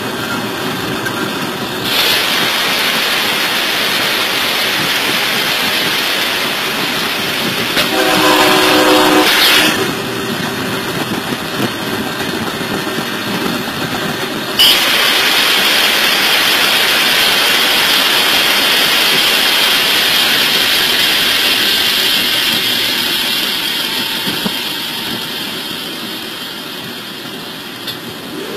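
A moving train heard from inside the driver's cab, with a steady rumble and hiss. A train horn sounds once for about a second and a half about eight seconds in. About halfway through there is a sudden step up to a louder hissing rush, which then slowly fades.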